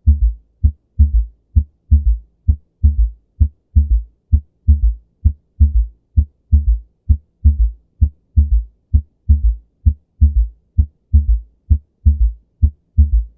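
Stethoscope recording of heart sounds with a third heart sound (S3): a steady run of short, dull, low thumps, two or three a second, in which an extra sound follows lub-dub, unlike either of them. Heard with a fast heart rate, this S1-S2-S3 gallop is the presentation of heart failure.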